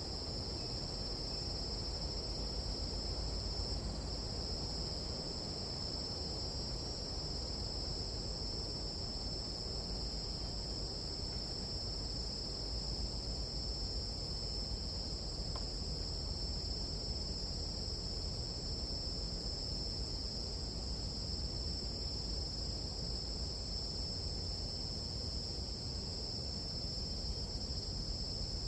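Nighttime tropical-forest insect chorus of crickets or katydids: an unbroken, steady high-pitched trill, over a low, even rumble.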